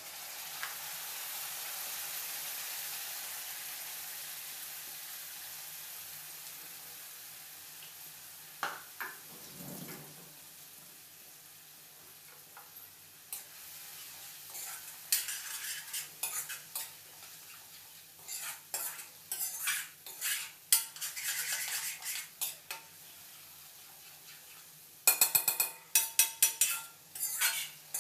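Spice paste poured into hot oil and onions in a kadai, setting off a loud sizzle that fades over several seconds. Then a spoon stirs the frying paste, scraping and knocking against the pan over the sizzling, the knocks quickening near the end.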